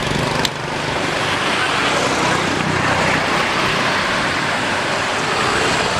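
Steady outdoor noise, an even hiss over a low rumble, with one short click about half a second in.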